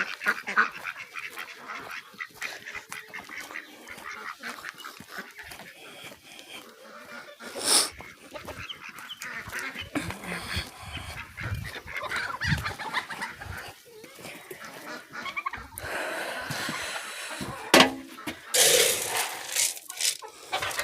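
A flock of domestic ducks and other backyard fowl calling, with honking and quacking going on throughout. A short loud burst comes about eight seconds in, and several louder calls come near the end.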